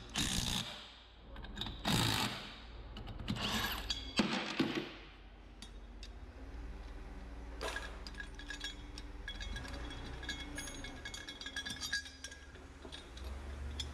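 Cordless impact driver running in three short bursts as it backs off the nuts on a bolt-down press bar, releasing the compressed brake piston of a torque hub final drive. Lighter metal clinks follow as the nuts and steel bar are handled.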